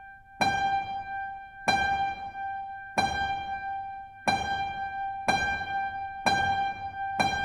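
Background music: a keyboard plays the same high note over and over, about once a second, each note ringing on before the next.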